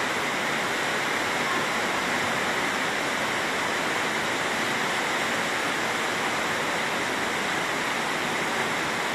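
Fast-flowing floodwater rushing through a flooded street: a steady, unbroken rush of water.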